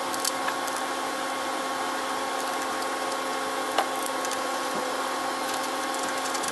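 A steady machine-like hum with a low drone, and a few faint light clicks near the start and one about four seconds in.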